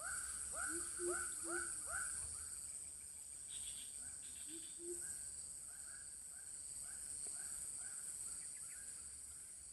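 Steady high-pitched insect buzzing with a repeated short chirping call, about two to three a second, loudest in the first couple of seconds and fainter after.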